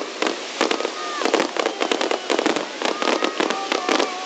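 Fireworks display: a dense, unbroken run of bangs and crackles, several a second.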